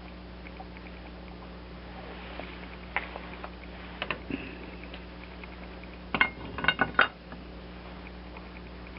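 Metal vise parts and tools clinking and clanking against each other during reassembly. There is a single clank about three seconds in, a couple more around four seconds, then a quick cluster of louder clanks a little past six seconds.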